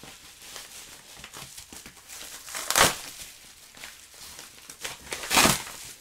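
Plastic mailing bag crinkling and rustling as it is handled and unwrapped, with two louder rustles, one about three seconds in and one near the end.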